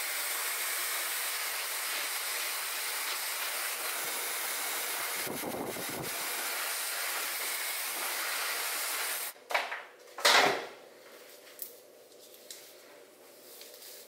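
Zuvi Halo hair dryer blowing with a steady hiss of air, switched off about nine seconds in, followed by two brief loud thumps.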